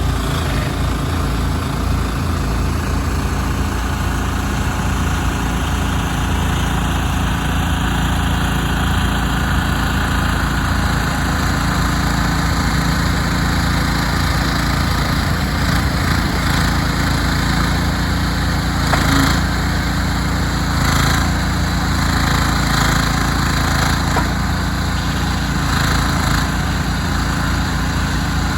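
Engine of a Shanding SD12D mini excavator running steadily, with a few short surges of hissing noise over it about two-thirds of the way through.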